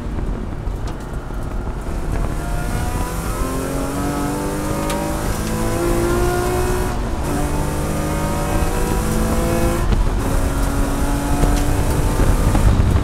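Race car engine heard from inside the cockpit, accelerating hard with the revs climbing through the gears. The pitch rises, drops at an upshift about seven seconds in, rises again, and drops at a second upshift about ten seconds in.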